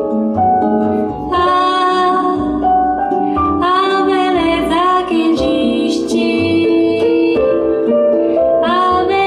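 Bossa nova recording, a woman singing over piano, played back through hi-fi bookshelf speakers in a demonstration room.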